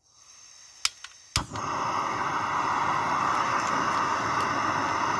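Backpacking gas canister stove being lit: a faint hiss of gas as the valve opens, two sharp clicks about a second in, then the burner catches and runs with a steady, loud hiss.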